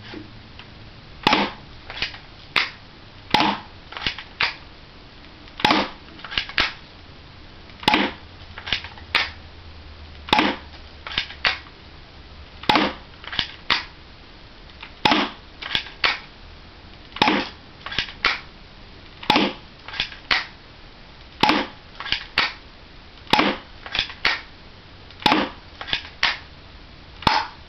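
Crosman Stinger P9 spring-powered airsoft pistol being fired repeatedly, a cluster of sharp plastic clacks about every two seconds: the slide racked to cock the spring, then the shot, about a dozen times.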